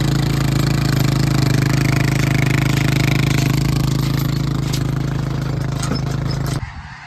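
An engine running at a steady speed, cutting off abruptly near the end.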